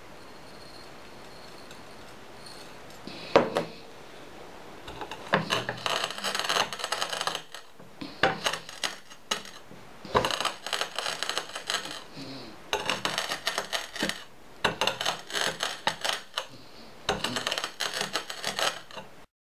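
Heavy hammer head being ground and rocked over crushed electronic scrap on a stone slab, fine-crushing it: gritty crunching and scraping in repeated bouts of about two seconds. A single sharp knock comes about three seconds in.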